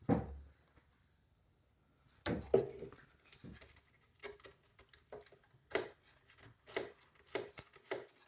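A knock, then from about two seconds in a run of irregular small clicks and knocks as welding wire is threaded by hand into the welder's wire tube.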